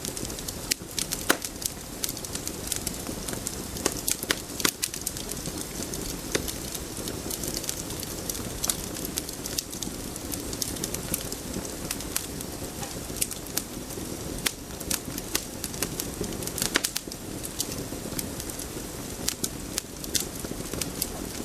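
Steady low ambient noise with irregular sharp crackles and clicks scattered throughout.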